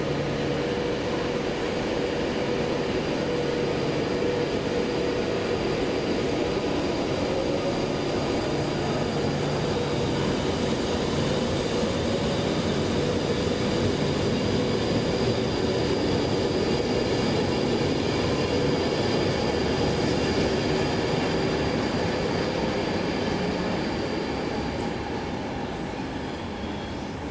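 A train running through the station: a steady rolling rumble with held ringing tones above it, fading away over the last few seconds.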